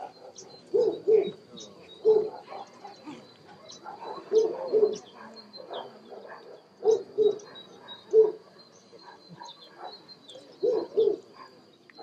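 German shepherd barking repeatedly, short deep barks coming singly or two at a time every second or two.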